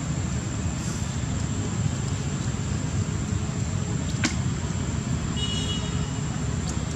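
Steady low outdoor background rumble, with one sharp click about four seconds in and a brief high-pitched squeak a little after five seconds.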